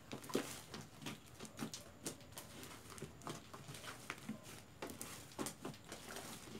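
A large batch of pink fluffy slime, made with shaving cream and dusted with baby powder, being kneaded and folded by hand, giving faint, irregular sticky clicks and pops, a few each second.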